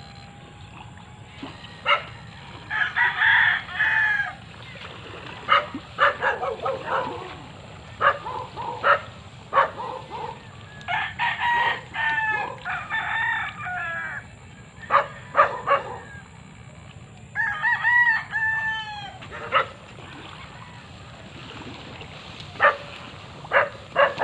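Roosters crowing several times, with short sharp sounds between the calls.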